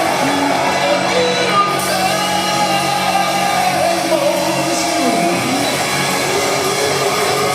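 Live hard rock band playing loudly, with a voice singing and shouting over sustained notes. About five seconds in, one note slides down in pitch.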